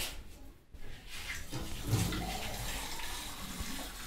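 Water running steadily from a kitchen tap, starting about a second in.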